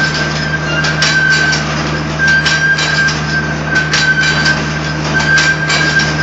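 Gabion (hexagonal wire netting) machine running: a steady motor hum under irregular metallic clicking and clattering from the wire-twisting mechanism, with a high thin whine that comes and goes.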